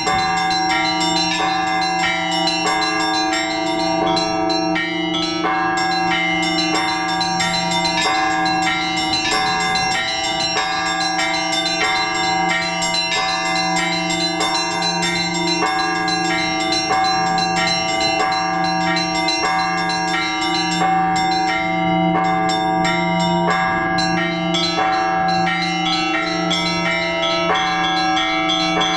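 Orthodox church bells rung together in a full peal (trezvon): quick, rhythmic strikes on several smaller bells over the steady hum of the larger bells.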